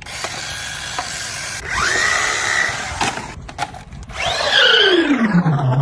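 Small electric motor whining over a steady hiss: the pitch rises about two seconds in, and near the end a louder whine falls steeply in pitch.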